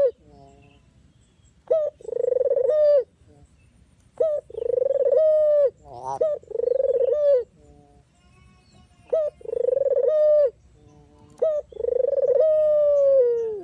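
Puter dove (Barbary or ringneck dove) cooing: five repeated phrases, each a short note followed by a longer held coo, about every two to two and a half seconds. The last coo is the longest and falls in pitch as it ends.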